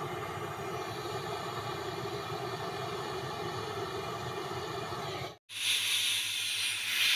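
Brazing torch flame burning steadily on refrigerator copper tubing. About five seconds in, the sound cuts off suddenly, and a loud hiss of gas follows for the last couple of seconds.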